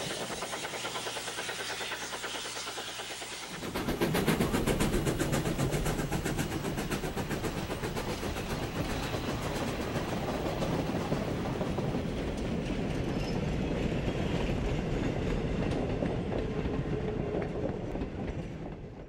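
Model freight train rolling past: a steady rumble with the wheels clicking rhythmically over the rail joints. It gets louder about four seconds in and dies away at the very end.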